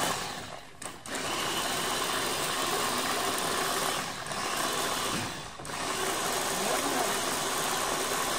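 Small electric blender running, chopping strawberries with milk, its motor cutting out briefly about a second in and twice more later before starting again.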